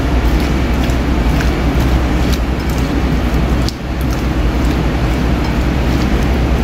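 A gloved hand tossing raw potato strips coated in egg and spice in a glass bowl, with light scattered clicks, over a steady low mechanical rumble that is the loudest sound throughout and dips briefly about midway.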